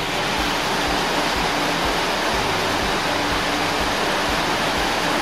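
Heavy tropical downpour: rain pouring down steadily in a dense, even hiss.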